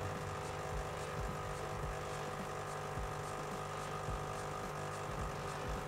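Espresso machine pump running with a steady buzzing hum while pulling an espresso shot.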